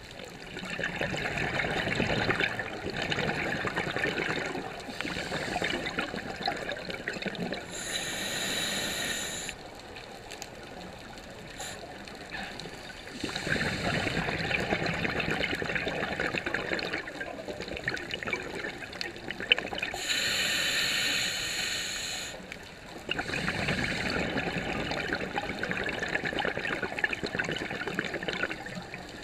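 Scuba diver breathing through a regulator underwater: three long, crackling bursts of exhaled bubbles, with a short hissing inhalation between them.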